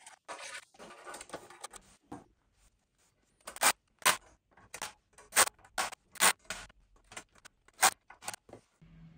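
Hands handling packaging and machine parts during assembly: rustling for about the first two seconds, then, after a pause, about a dozen short, sharp clicks and scrapes at uneven intervals.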